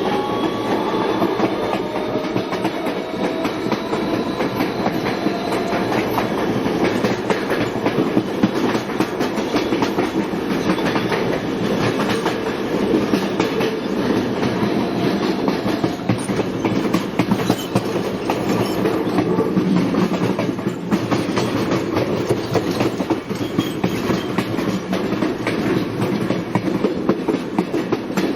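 Subway train running along the track: a whine of several tones rises and levels off over the first few seconds and fades, then a steady rumble with frequent clicking of the wheels over the rails.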